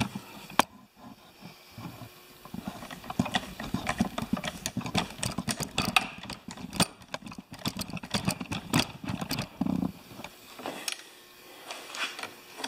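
Carpenter's vise being worked, its wooden jaw moving in and out on steel guide rods and a threaded screw, with a long run of irregular clicks and rattles that thins out near the end.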